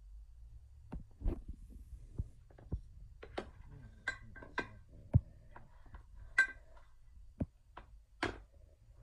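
Scattered knocks and clicks as a stripped aluminium AR upper receiver is picked up and turned over by hand on a table, a few of them light metallic clinks that ring briefly.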